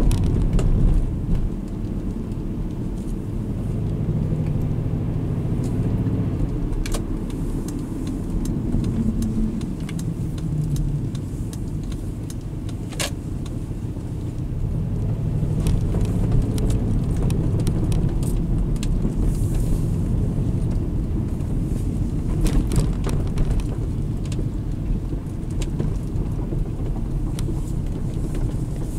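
Interior sound of a 2002 Subaru Legacy Blitzen's flat-four engine and road noise at low speed: a steady low rumble. A few sharp clicks stand out along the way.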